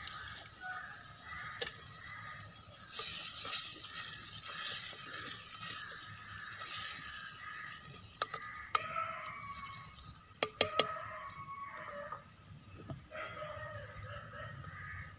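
Water poured into a clay pot of frying tomatoes and onions, sizzling, then a wooden spatula stirring the mix, with a few sharp knocks a little past the middle.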